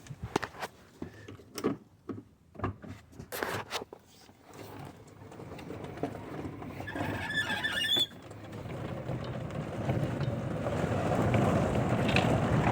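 A golf cart driving off, its running noise building steadily louder as it picks up speed, with a brief high squeal about seven seconds in. A few knocks and clicks come before it.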